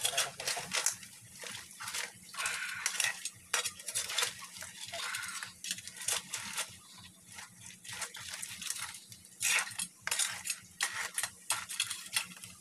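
A metal spoon and spatula scrape and clank against a metal wok as a panful of whole mud crabs is stirred and tossed. The strokes come irregularly, about one to three a second.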